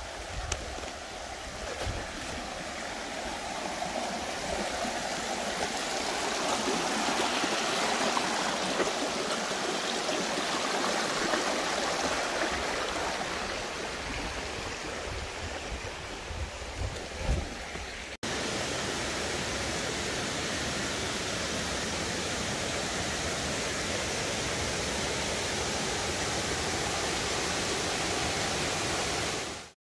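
Flowing water rushing steadily. About two-thirds of the way through it cuts to a second, even steadier stretch of the same rushing sound, and it stops abruptly at the very end.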